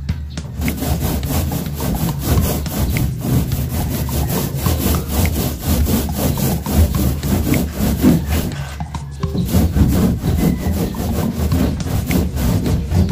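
Paintbrush scrubbing back and forth across a plywood wall in quick, rhythmic, scratchy strokes, about four a second, with a short pause about nine seconds in before the strokes resume.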